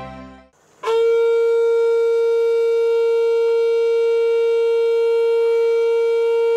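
Conch shell (shankha) blown in one long, steady note that starts just under a second in, after soft background music fades out.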